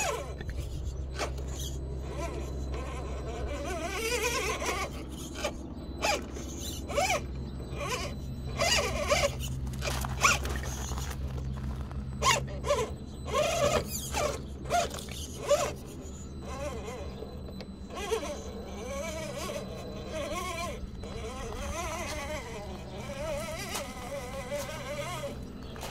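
Absima Sherpa RC rock crawler's electric motor and geared drivetrain whining in low gear, rising and falling with the throttle as it crawls over rocks and onto a wooden ramp. Sharp clicks and knocks of the chassis and tyres on rock and wood come and go, thickest near the middle.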